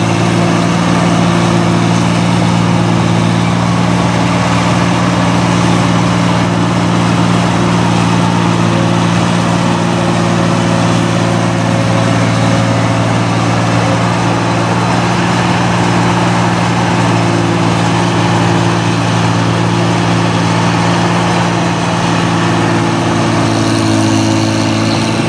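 New Holland Clayson 1545 S tracked combine harvester working in a rice field: its diesel engine and threshing machinery run steadily under load as it cuts, a constant drone with a broad hiss over it.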